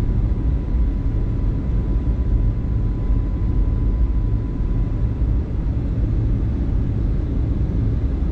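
Steady low rumble of a Boeing 757-200 in flight, the engine and airflow noise as heard inside the cabin. A faint thin steady tone sits over it and fades out about five seconds in.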